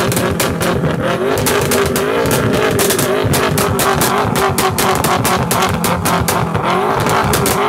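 Tuned 800 PS BMW M5 with an Akrapovic exhaust, its engine running with a steady drone and revved lightly twice, over a rapid string of sharp exhaust crackles and pops, several a second.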